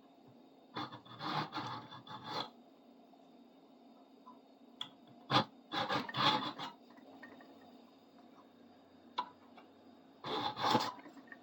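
A hand file rasping on a steel screwdriver tip in three short runs of strokes, with a couple of sharp clicks between them.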